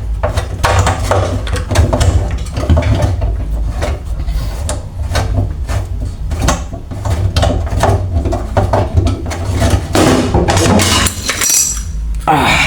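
Many irregular clicks, knocks and rattles of tools and metal fittings being worked loose as an old kitchen faucet and its hose are taken off.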